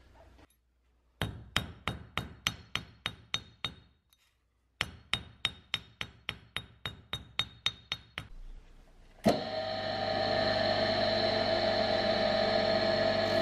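Small hand hammer tapping a pin in the steel jaw plate of a vise, two runs of quick ringing strikes about four a second with a short pause between. About nine seconds in, a bench motor with a polishing wheel starts up and runs with a steady hum and whine.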